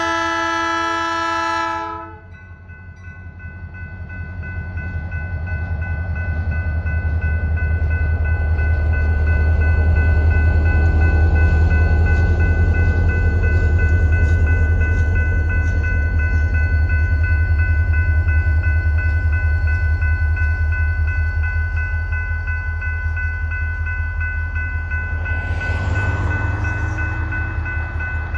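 Norfolk Southern diesel locomotives sounding a multi-note air horn that cuts off about two seconds in, then the locomotive engines rumbling with a fast low pulse as they roll past, growing louder toward the middle. A steady high ringing tone sounds underneath, and a brief swish of passing noise comes near the end.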